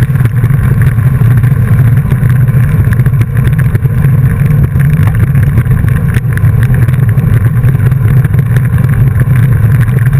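Loud, steady wind rumble buffeting the microphone of a camera mounted on a moving bicycle.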